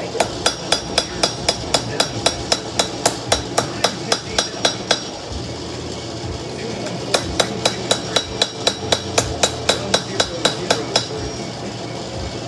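Hand hammer forging a hot knife blade on a steel post anvil: two runs of quick, even blows, about four a second, each with a bright metallic ring. The hammering breaks off for about two seconds midway and stops near the end.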